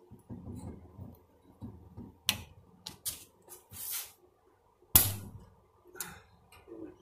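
Snap ring pliers working at the steel snap ring that holds a front wheel bearing: a string of sharp metal clicks and short scrapes as the jaws grip and slip, the loudest click about five seconds in.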